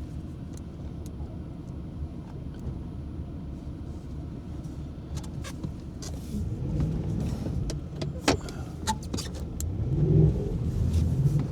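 Plow truck engine running under load, revving up twice, around the middle and near the end, with a few sharp clicks and knocks in between.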